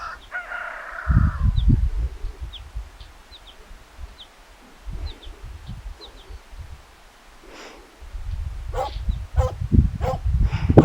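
Livestock and camp animals calling: one drawn-out call right at the start, then a run of short sharp calls about two a second near the end, with faint high bird chirps between. Low gusts of wind buffet the microphone.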